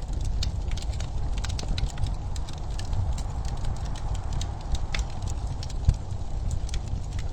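Wood fire crackling in a fireplace: many irregular small snaps and pops from the burning logs over a steady low rumble.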